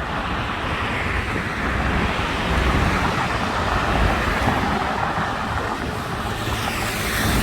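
Steady traffic noise from a busy highway: engines and tyres of passing cars blending into a continuous rush.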